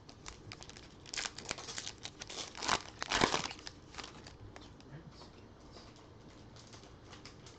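Plastic trading-card pack wrapper crinkling and being torn open, a run of crackly rustles loudest about three seconds in, trailing off into faint light ticks.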